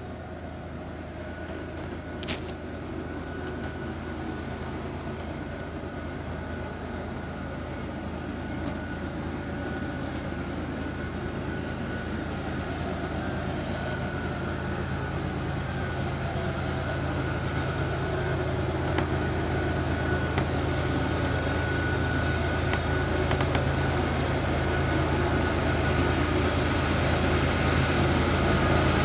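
Diesel locomotives of an approaching freight train, a steady low engine drone that grows gradually louder as the train nears.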